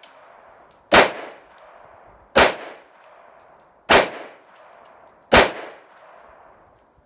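Four gunshots from a firearm fired at a steady pace, about one every second and a half, each followed by an echoing tail.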